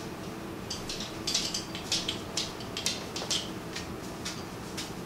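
Quick, irregular footsteps tapping on a hard floor as someone dances into the room, a dozen or so sharp taps over about three seconds, then fainter ones, over a low steady room hum.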